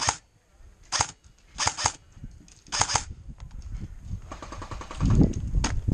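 Short bursts of airsoft rifle fire, four rapid strings of shots in the first three seconds. Near the end a louder, low rumbling noise takes over.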